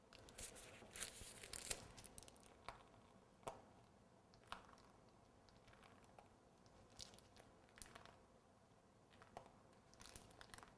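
Faint, scattered crinkling and ticking of a plastic piping bag being squeezed and handled as buttercream is piped out in small dabs.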